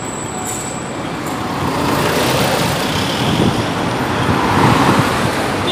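City street traffic noise, with a vehicle passing close that swells from about two seconds in and is loudest near the end.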